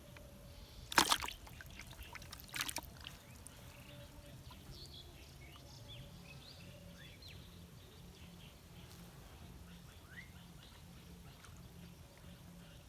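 Two brief splashes of water about a second and a half apart, followed by faint scattered bird chirps over a low steady background.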